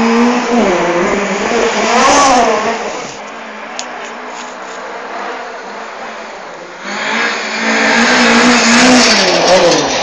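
Rally car engine revving hard as it drives past, its pitch climbing and dropping with gear changes and throttle; the sound fades for a few seconds and swells loudly again from about seven seconds in.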